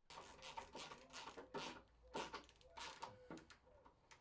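Faint, irregular scrapes and clicks of a spanner turning nuts onto bolts, tightening the wooden table top down onto the cast-iron base.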